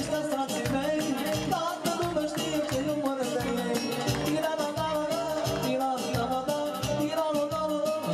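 Dance music with a steady beat and a wavering, ornamented melody line, with singing over it.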